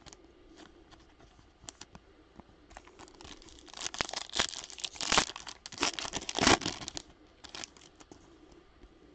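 Foil wrapper of a Topps Chrome baseball card pack being torn open and crinkled, a dense run of crackling from about three seconds in to about seven, loudest near the end of it. Lighter clicks of card and wrapper handling come before and after.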